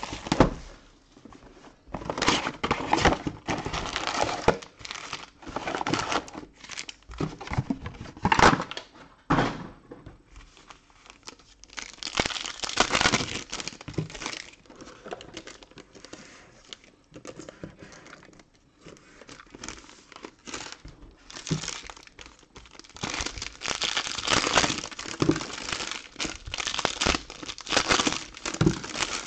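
Plastic shrink wrap being torn off a trading-card box and foil card packs being handled and crinkled by hand: irregular bursts of crackling and tearing, with a quieter stretch in the middle.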